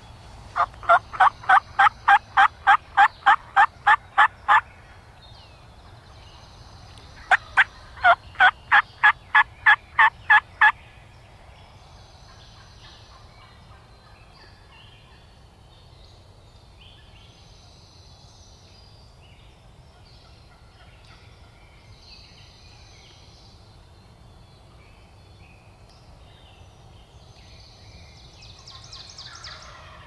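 Two long runs of loud turkey yelps, each about a dozen evenly spaced notes at three or four a second, a few seconds apart.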